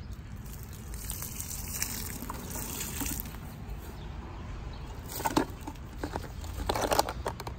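Watery morel mushroom slurry pouring from a plastic bucket and splashing onto soil and leaf litter, with louder splashes about five and seven seconds in.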